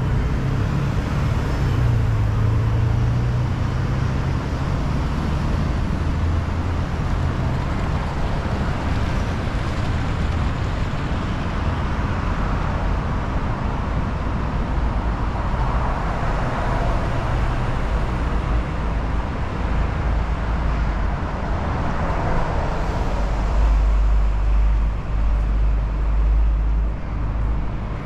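City street traffic: vehicles passing in a continuous wash of engine and tyre noise, with a deeper low rumble setting in near the end.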